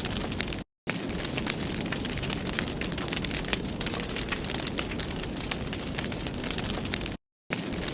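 Wood fire burning in a fireplace: a steady low rush with frequent sharp crackles and pops. The sound cuts out completely for a moment twice, near the start and near the end.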